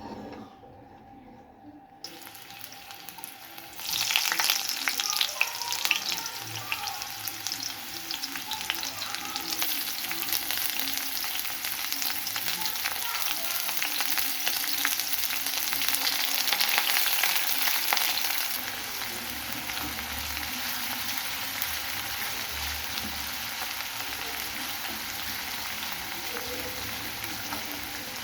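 Food frying in hot cooking oil in a pan: a soft hiss, then a sudden loud crackling sizzle about four seconds in as food goes into the oil, settling to a steadier, quieter sizzle in the second half.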